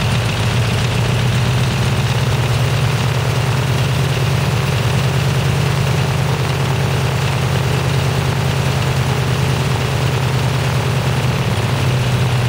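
Cessna 195's radial engine idling steadily with a low, even drone, running on its first start after about 26 years in storage.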